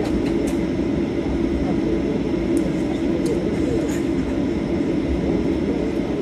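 Steady cabin noise inside a Boeing 737 as it taxis: a low, even drone of the jet engines at low power and the airframe rumbling, with faint passenger voices underneath.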